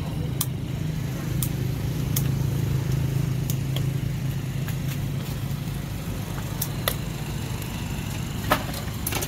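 Motor vehicle engine running close by, a steady low hum that fades out about six seconds in, with scattered sharp clicks and taps over it.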